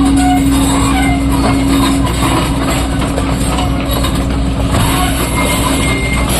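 Heavy diesel machinery running steadily with a low rumble and a steady whine, the whine weakening about two seconds in.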